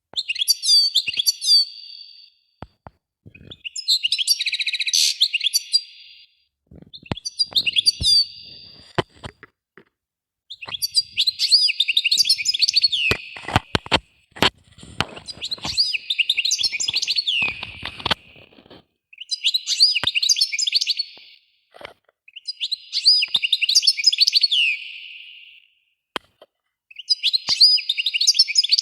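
A songbird singing in repeated phrases of about two seconds, each a quick run of high trilled and sliding notes, with short pauses between phrases.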